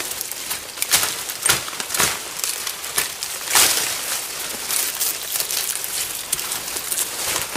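Dry, tangled vines and dead leaves rustling and crackling as they are pulled apart and cut with a machete, with several sharp snaps and cracks.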